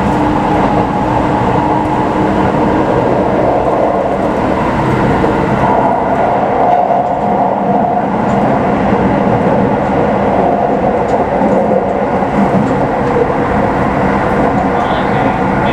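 Keikyu New 1000 series electric train heard from inside the car while running: a steady rumble of wheels on the track with a constant hum of several steady tones from the running gear.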